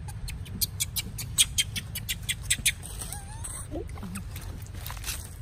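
A rapid run of sharp, crackly clicks lasting a couple of seconds, then a few faint short squeaks that slide in pitch, from a young long-tailed macaque.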